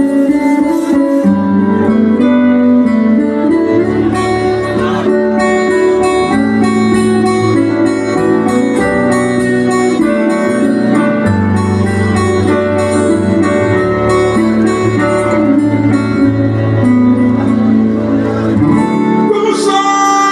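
Live gospel band music, loud, with an acoustic guitar strumming over sustained chords and a stepping bass line. A voice comes in near the end.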